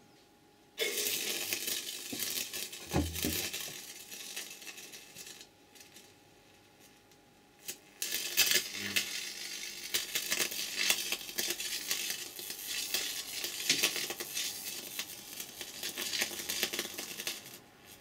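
Bug zapper grid driven at about 4,000 volts by microwave oven transformers, arcing through a sprig of Leylandii foliage: loud crackling and sizzling for about five seconds. It stops for a couple of seconds, then crackles again until near the end.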